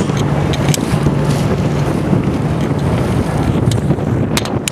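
Steady wind rumble buffeting the microphone, with a boat's engine running beneath it and a few sharp clicks near the end.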